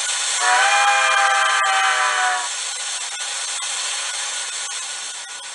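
TCS WOW Sound steam decoder playing through a small model-locomotive speaker as the engine slows with the throttle off: a steady hiss, with a pitched sound rich in overtones for about two seconds near the start.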